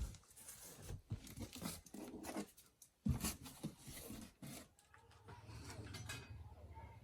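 Irregular rustling and tearing of packaging being handled, with a brief pause about three seconds in; a low steady hum sets in at about five seconds.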